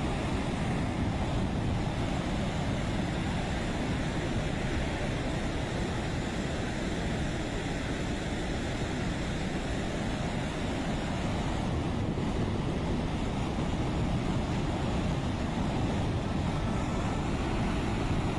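Muddy floodwater rushing steadily and spilling down a stepped concrete weir in a wadi in spate.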